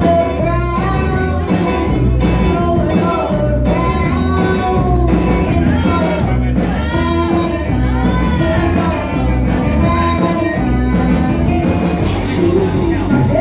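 Live rock and roll band: a woman singing lead over electric guitars and a drum kit.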